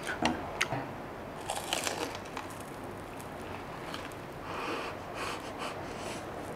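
Crunching and chewing of crispy deep-fried pork belly, close to the mic, in several crackly bites.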